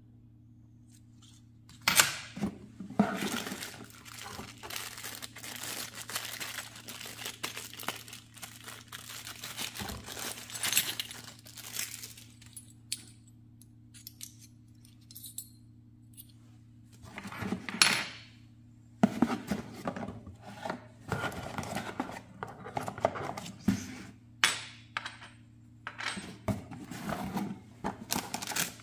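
Small metal hot-air gun nozzles clinking against each other and being set down on a table one by one, mixed with plastic zip bags rustling and cardboard being handled. A steady low hum runs underneath.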